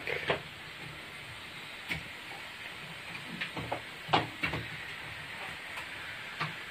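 Pieces of raw chicken being dropped into a steel pot of masala, with a few sharp clinks and knocks of the spoon and pieces against the steel over a steady hiss from the stove.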